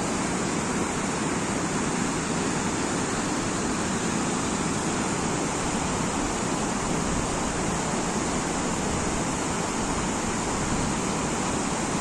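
A rain-swollen, muddy mountain stream rushing over rocks, making a steady, loud rush of water that does not let up.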